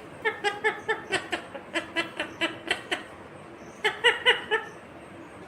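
Indian ringneck parrot giving a rapid string of short, laugh-like chattering notes, about five a second, then a second short burst a little after the middle.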